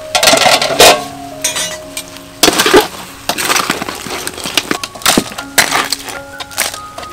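Metal spatula clanking and scraping against a steel wok as whole blue crabs in their shells are stir-fried and tossed, with repeated sharp clatters of shell and metal.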